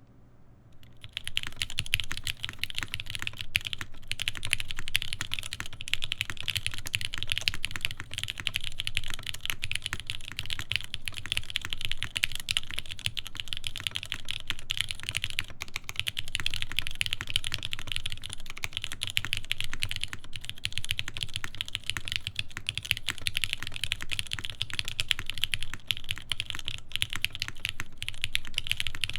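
Continuous fast typing on a TGR Jane v2 CE mechanical keyboard with linear Cherry MX Black switches lubed with Krytox 205g0, a carbon fiber plate and GMK keycaps. It starts about a second in.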